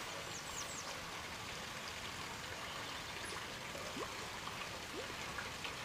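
Faint outdoor pond-side ambience: a steady soft hiss with a few brief faint chirps and ticks scattered through it.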